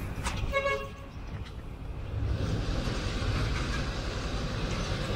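A short toot, about half a second long, from a miniature railway locomotive's whistle near the start, followed from about two seconds in by a steady hiss over a low rumble.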